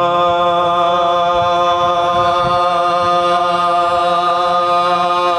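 Male voices holding one long, steady unison note a cappella, with no words: the sustained vocal drone of soz-khani chanting that supports the lead reciter.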